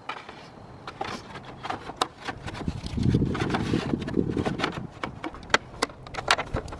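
Plastic radiator fan shroud being dropped and worked into place in front of the engine, giving scattered plastic clicks, knocks and scrapes.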